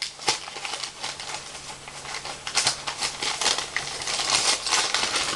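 Paper and packaging rustling and crinkling as a parcel is unpacked by hand, with dense irregular crackles that grow busier in the second half.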